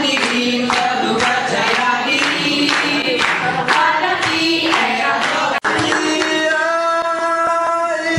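A group singing a song, led by voices at a microphone, with hands clapping in time. A little over five seconds in the sound breaks off abruptly, and a single long held sung note follows without clapping.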